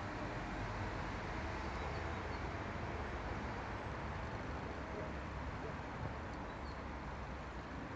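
Class 220 (V200) diesel-hydraulic locomotive and its train pulling away into the distance: a steady low rumble of the running train.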